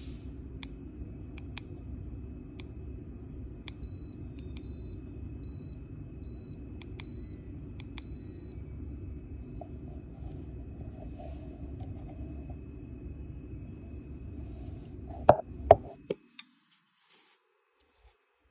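Handheld Geiger counters clicking at irregular intervals as they register counts, with a short run of high beeps between about 4 and 8 seconds in, over a steady low hum. Near the end two loud knocks from the detectors being handled, then the hum stops.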